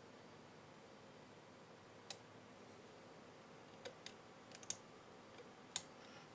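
Small sharp clicks from steel tweezers flipping the tiny slide levers of a miniature DIP switch on a homemade PIC timer board: a single click about two seconds in, then a quick cluster of about five clicks.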